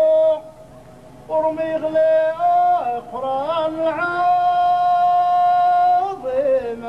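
A man singing solo into a microphone, with no accompaniment, in an ornamented melismatic line. He breaks off briefly about half a second in, resumes with winding turns of pitch, holds one long steady note for about two seconds, then ends on a falling ornament.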